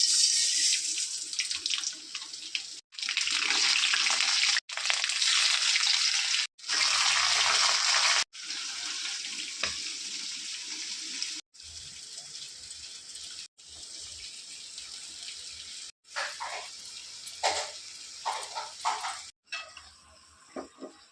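Water running from a kitchen tap as a steady hiss, cut into several short segments. It is loudest for the first eight seconds and softer after that, with a few light clinks near the end.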